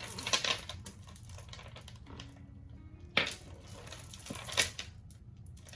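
Costume jewelry being handled and set down: light clicking of small metal and plastic pieces and some rustling, with two sharper knocks about three and four and a half seconds in.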